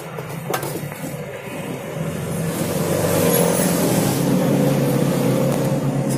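A motor vehicle's engine running, growing louder over the first three seconds and then holding steady, with a short metallic click about half a second in.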